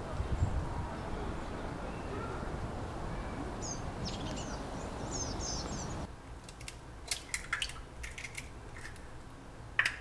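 Steady outdoor ambience with a few small birds chirping about four seconds in. After about six seconds it gives way to a quieter room with several light clicks and taps of kitchen dishes and utensils being handled, the loudest just before the end.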